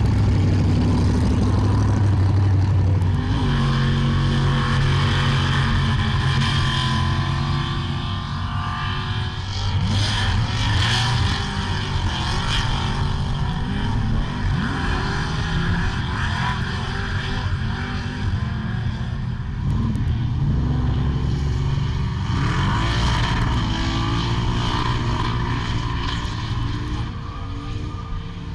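Supercharged car engine running at low revs, a steady deep rumble, giving way after a few seconds to several car engines revving hard, their pitch rising and falling again and again.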